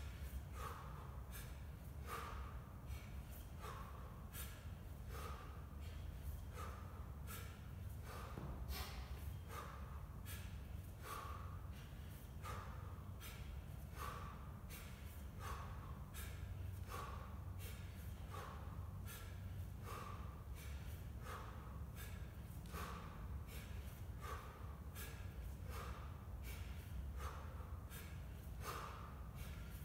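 A man's sharp, forceful breaths in a quick steady rhythm, from the exertion of repeated kettlebell cleans, over a steady low hum.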